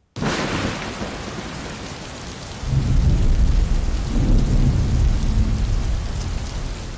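Heavy rain hissing, with thunder rumbling in low about two and a half seconds in. The sound starts and stops abruptly, as a storm sound effect laid under a title card does.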